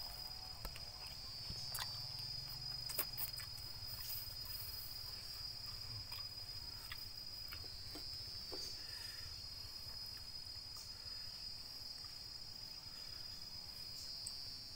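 Insects droning steadily at a high pitch, with a few faint clicks and taps.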